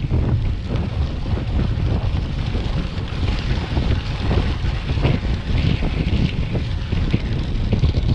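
Wind buffeting the microphone of a road bike ridden fast, with the tyres rumbling and crackling over crushed gravel.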